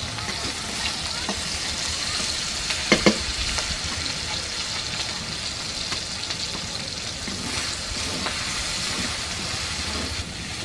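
Grated garlic and ginger sizzling in hot oil in a metal karai (wok) while being stirred, a steady frying hiss. A couple of sharp clinks of the metal spoon against the pan come about three seconds in.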